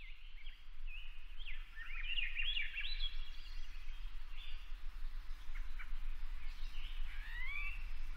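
Several birds singing and chirping: quick whistled notes that sweep up and down, thickest in the first few seconds and again near the end, over a steady low hum.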